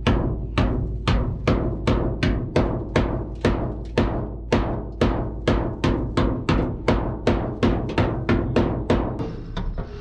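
Hand hammer striking the steel roof frame of a Mercedes truck cab, about three blows a second, each hit ringing briefly. The blows stop about half a second before the end.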